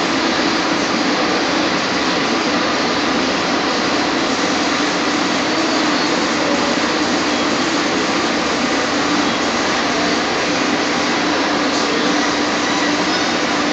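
Electric pedestal fan running: a steady rush of air with a hum underneath.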